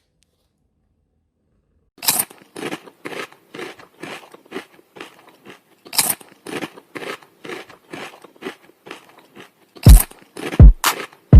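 A cat chewing crunchy food, starting about two seconds in, with steady crunches at two to three a second. Near the end, deep falling bass-drum booms of music come in over it.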